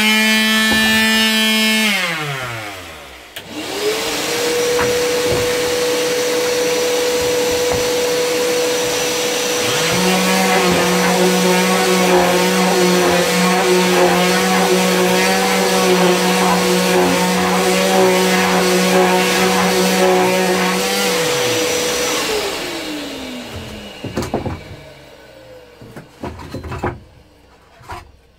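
Parkside detail sander sanding a wooden beam, with a vacuum attached to its dust port. Motors from the previous pass wind down at the start. One motor comes up to a steady whine a few seconds in and a second steady hum joins at about ten seconds. Both shut off and spin down about two-thirds of the way through, followed by a few knocks as the beam is handled.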